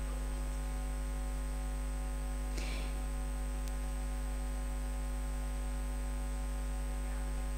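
Steady electrical mains hum with a stack of even tones and a faint hiss under it, with one brief faint rustle about two and a half seconds in.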